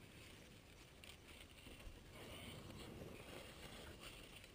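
Near silence: faint, steady background noise.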